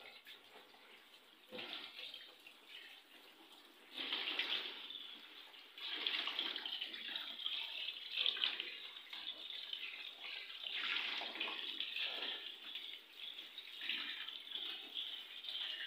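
Water running from a kitchen tap, coming in uneven surges, as something is rinsed under it at the sink.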